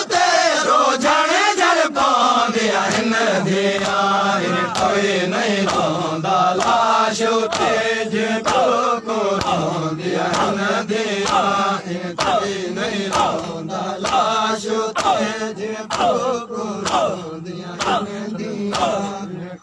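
Noha lament sung by a male reciter on a microphone, with a group of men chanting along in a slow, wavering melody. From about four seconds in, sharp beats keep an even rhythm under the voices, about one and a half a second.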